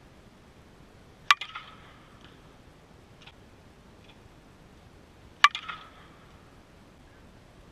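2017 Louisville Slugger Super Z composite slowpitch softball bat hitting pitched balls twice, about four seconds apart. Each contact is a sharp crack with a short ringing ping after it.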